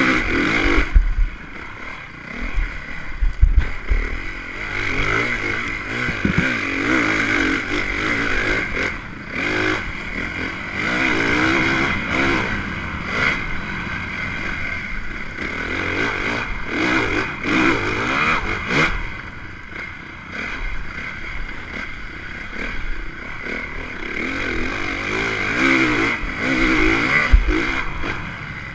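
Dirt bike engine revving up and falling off again and again as it is ridden hard around a motocross track, heard from a camera mounted on the bike, with wind noise and several sharp knocks and rattles from the bike over the ground.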